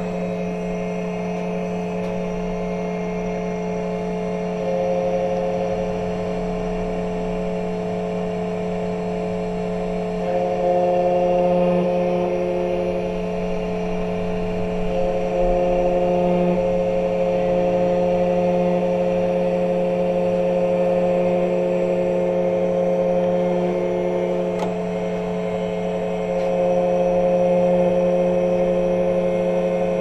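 Xtool KNC91 key cutting machine's spindle motor running with a steady whine as its cutter mills a Suzuki key blade. It grows louder in several stretches while the cutter works the blade.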